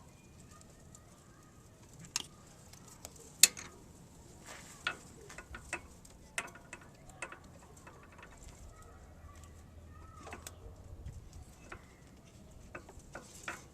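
Scattered small clicks and knocks of hand work on a new heater valve and its rubber coolant hoses, the sharpest about a third of the way in.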